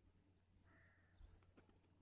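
Near silence: faint outdoor quiet with a low steady hum, and one faint, short distant bird call just under a second in.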